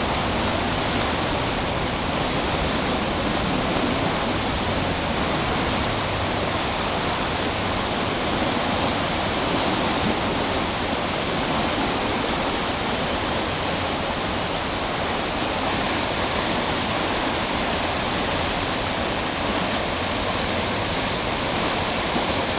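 A river in full flood rushing past: a steady, even rush of turbulent floodwater.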